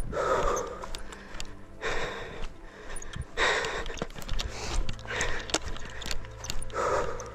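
A person breathing hard and panting, about one heavy breath every second and a half, with small clicks in between.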